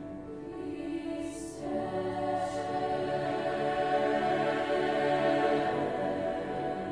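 Large mixed choir singing sustained chords, growing louder after the first couple of seconds. Two brief sung 's' sounds come in the first few seconds.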